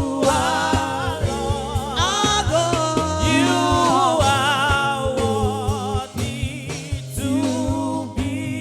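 Gospel praise music: a sung melody with wavering vibrato over a steady instrumental accompaniment.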